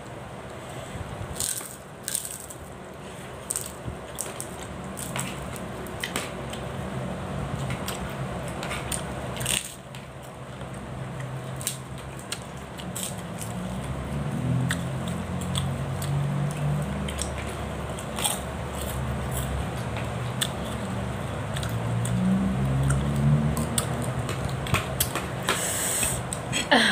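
A person eating curried red snapper head by hand, close to the microphone: chewing and sucking sounds with many small scattered clicks. There are a couple of low hums, about halfway and again near the end.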